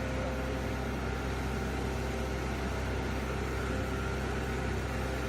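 Ultrafine powder mill running steadily: an even mechanical noise with a constant hum and several steady tones.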